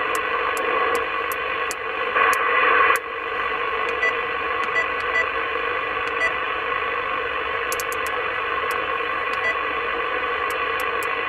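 Superstar SS-7900 CB transceiver in upper-sideband mode giving out a steady rush of band noise from its speaker as the frequency dial is turned, with no station coming through. The noise swells about two seconds in, and a run of light clicks sounds over it from the tuning steps.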